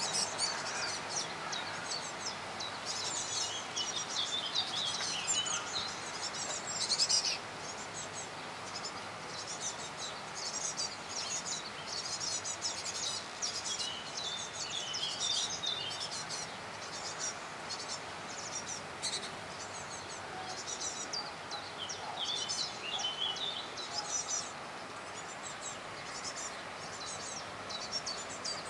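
Great tit chirping: rapid clusters of short, high-pitched calls, some falling in pitch, louder in the first seven seconds or so and softer after.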